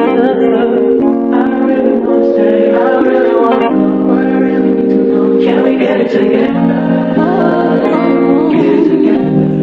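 Background music: a pop song with held keyboard chords and a sung melody.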